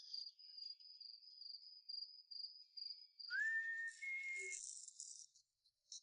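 Insect chirping in a fast, even, high-pitched trill. About three seconds in, a louder hiss with a whistling tone joins it for a second or so.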